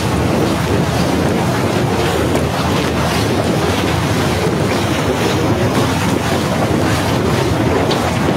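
Snowstorm wind buffeting the phone's microphone: a loud, steady rumble of wind noise that does not let up.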